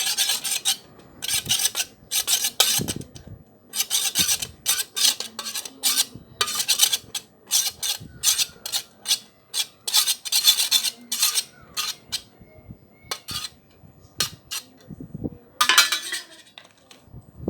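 Stirring in a bowl: irregular scraping, rasping strokes, some short and some about a second long, as the utensil rubs against the bowl while mixing the slime.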